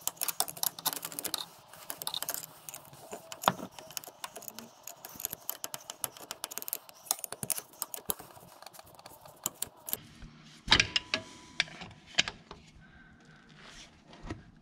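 Rapid small clicks and rattles of metal as a gloved hand turns the John Deere 2320's rear drive shaft at its U-joint, bringing the grease zerk round into position. The clicks are dense at first and sparser later, with a couple of louder knocks near the end.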